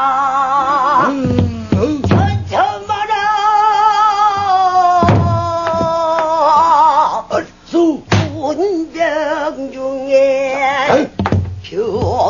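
Pansori singing: long held notes with a wide, wavering vibrato and sliding pitch, accompanied by a buk barrel drum struck a few times, about three seconds apart.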